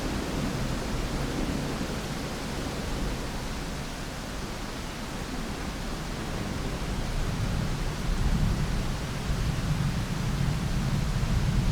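Steady rain hiss with distant thunder: a low rumble swells up in the second half and grows louder toward the end.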